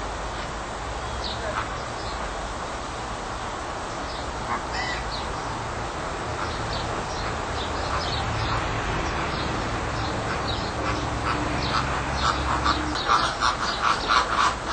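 A flock of American flamingos honking. Over the last few seconds the calls come louder and closer together, several a second.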